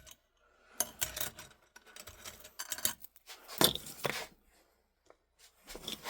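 Short bouts of metallic clinking and rattling, four times: a loose engine timing chain being handled, its links knocking together.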